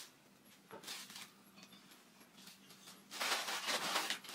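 Tissue paper rustling and crinkling as it is handled and pushed into a wicker gift basket: a few faint soft rustles at first, then louder, continuous crinkling from about three seconds in.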